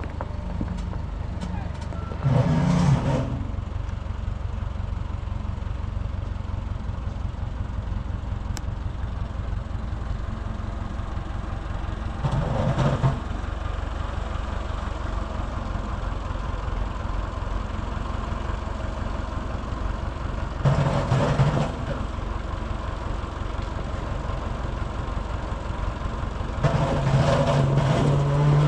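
A tractor engine running steadily with a low, even rumble. A few short, louder pitched bursts rise over it about every eight to ten seconds.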